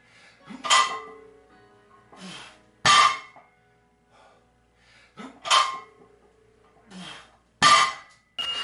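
A 210 lb barbell loaded with metal plates set down on the floor rep after rep during bent-over rows: four loud clanks about two to three seconds apart, the plates ringing briefly after each.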